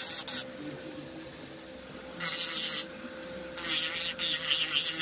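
Electric nail drill (e-file) running with a steady hum, its bit grinding over the surface of a glitter-coated nail in two harsh scraping passes, a short one about two seconds in and a longer one from about three and a half seconds on, filing down lumps to get the nail smooth.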